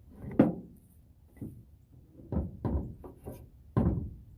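A series of about seven irregular wooden knocks and clunks, the loudest about half a second in: pre-cut wooden gauge blocks being handled and knocked while setting the chainsaw mill's cutting height.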